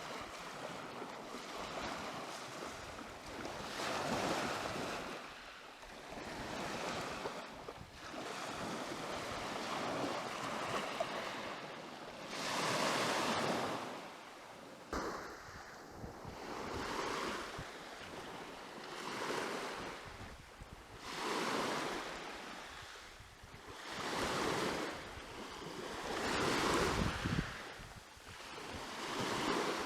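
Sea waves washing onto the shore, swelling and falling back every two to three seconds, with some wind rumble on the microphone.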